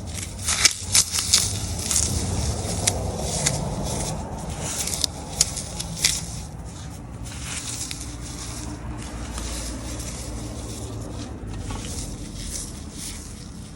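Floral foam being crushed by hand: crunching and crackling, with several sharp cracks in the first six seconds, then a steadier, softer crunching.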